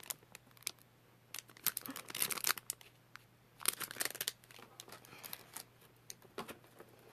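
Plastic packaging crinkling and rustling as it is handled, in two short flurries of crackles.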